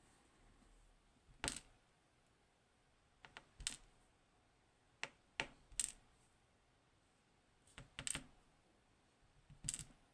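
Small metal lock parts clicking as they are handled and set down on a hard surface: sharp separate clicks every second or two, some in quick pairs or threes.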